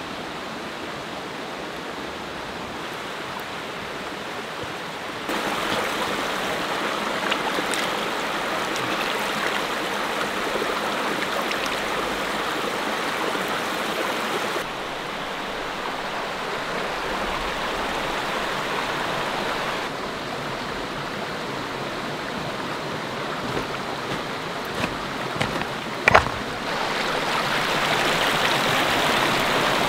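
A shallow, rocky mountain creek running and splashing over stones, a steady rushing whose loudness steps up and down a few times. A single sharp click stands out about 26 seconds in.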